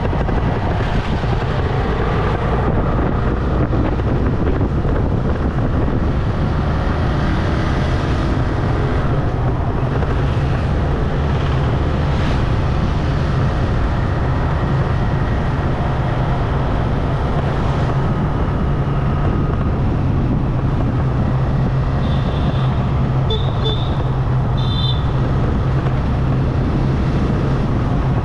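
Motorcycle riding at a steady speed: a constant low engine hum under heavy rushing wind and road noise on a low-mounted camera microphone. A few short high chirps sound about three-quarters of the way through.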